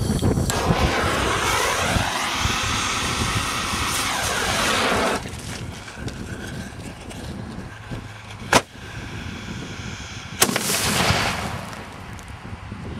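A 1.4G consumer artillery shell fired upside down in a fiberglass mortar, blowing the tube apart. Several seconds of loud rushing hiss are followed by two sharp bangs about two seconds apart. The second bang trails a short burst of crackling noise.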